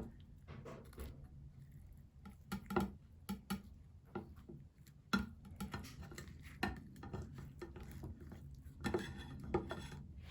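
Dishes and utensils being handled: scattered, irregular clinks and knocks.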